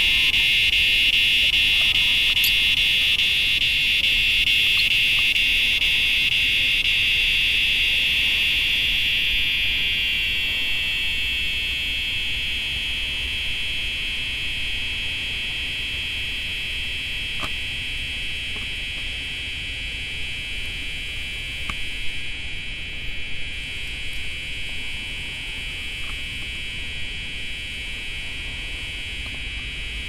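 Cicadas singing in chorus: a steady, high-pitched drone that fades to a softer level about ten seconds in and carries on.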